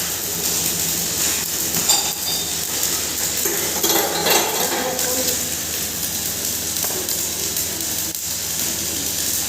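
Turmeric pulverizer (hammer mill) running steadily with a continuous hum and hiss. Metallic clinks and rattles come through, the loudest about two seconds in and around four seconds in.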